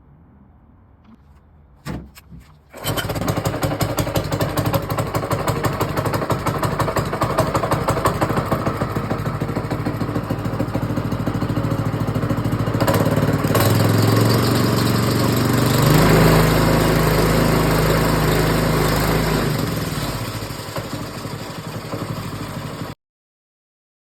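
The Rolux X20's engine is started after a click and a brief catch, then runs steadily on its freshly changed oil. A little past halfway the revs rise, then ease back, and the sound stops abruptly near the end.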